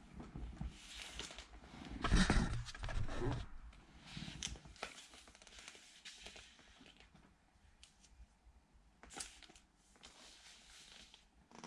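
LP record sleeves being handled and shuffled: cardboard sleeves rustling and sliding against each other, with a louder bout of rustling and bumping about two seconds in and lighter scrapes and taps after.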